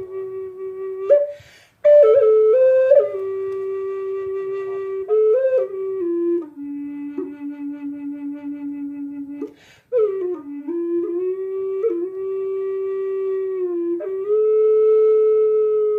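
Solo flute music: a slow melody of long held notes, broken by two short pauses for breath, about two seconds in and near ten seconds.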